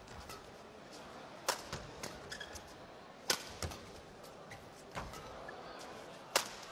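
Badminton rackets striking the shuttlecock during a men's doubles rally: four sharp cracks about one and a half to two seconds apart, with fainter ticks and short squeaks between them, over the steady hum of the arena hall.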